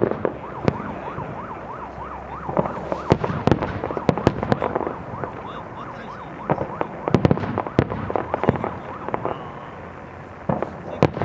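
Fireworks show: repeated sharp bangs and crackling bursts from exploding aerial shells, coming in clusters. For the first few seconds a warbling whistle rises and falls about four times a second over the bangs.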